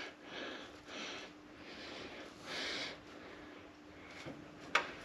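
Quiet breaths and soft handling noises from a man straining to work an aftercooler gasket into place by hand, with a faint steady hum behind and one sharp click near the end.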